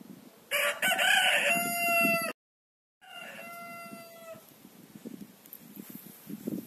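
Rooster crowing: a loud cock-a-doodle-doo starting about half a second in that cuts off abruptly, then after a moment of dead silence the held end of the crow resumes more faintly.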